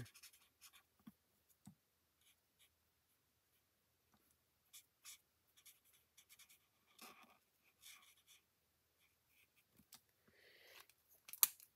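Faint scratching of an alcohol marker's felt tip colouring a small cardstock piece, in short strokes with pauses between them. A sharp click comes near the end.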